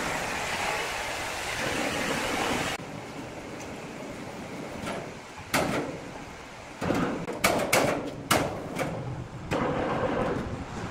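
Sawmill band saw running with a steady rushing noise as a sawn wooden slab is pushed along it. About three seconds in the noise drops, and a series of sharp knocks and bangs follows as heavy timber is handled on a steel log carriage.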